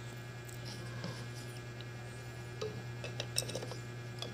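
A few faint, scattered metal clicks and clinks from a hand handling the needle plate and slide plate of a Juki MH-380 industrial sewing machine. A steady low hum runs underneath.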